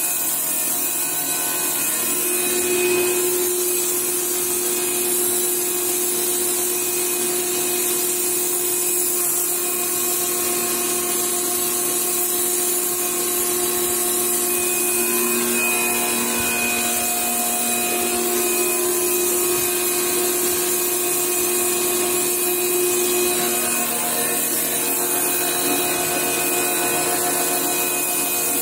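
Bosch Aquatak 125 electric pressure washer running steadily: its pump motor hums under the hiss of the high-pressure jet blasting hardened moss and cement off a concrete floor. The hum drops lower for a few seconds about halfway through.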